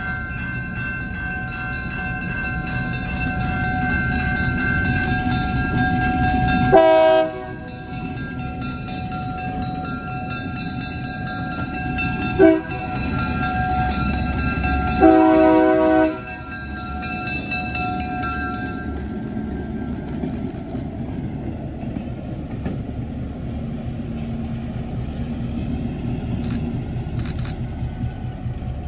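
Diesel locomotive sounding its horn at a grade crossing: a short blast about seven seconds in, a brief toot around twelve seconds, and a longer blast around fifteen seconds. Under the horn a bell rings steadily until it stops about two-thirds of the way through, while the locomotive's engine and wheels run on.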